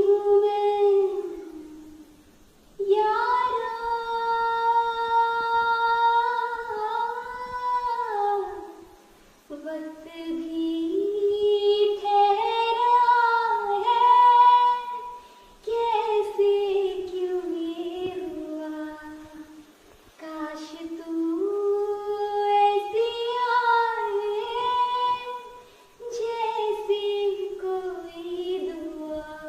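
A single high voice singing unaccompanied, in long held notes that slide up and down, in phrases of a few seconds with short breaks between them.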